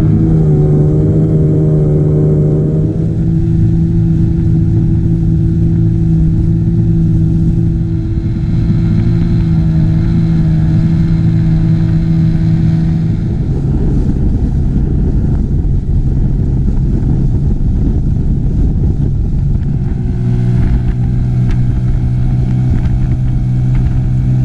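Small boat's outboard motor running at speed, a steady drone whose pitch shifts a few times, over a constant rush of wind and water.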